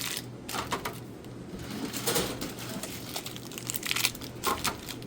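Plastic snack-bar wrappers crinkling, with light irregular knocks, as bars are pushed down into the spiral coil of a vending machine tray.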